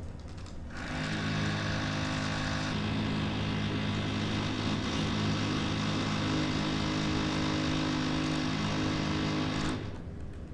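WLtoys 124018 RC truck's 550 electric motor and geared drivetrain whining as the wheels spin free in the air. The whine starts about a second in, changes tone a couple of seconds later, and stops about a second before the end.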